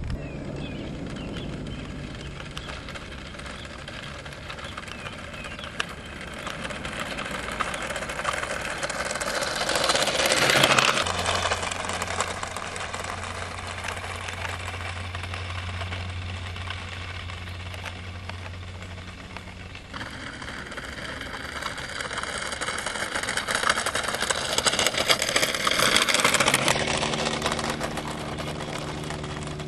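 Motor and wheel noise of a vehicle passing close, swelling and fading twice: once about ten seconds in and again about twenty-five seconds in. A steady low hum runs underneath, and the sound changes abruptly about twenty seconds in.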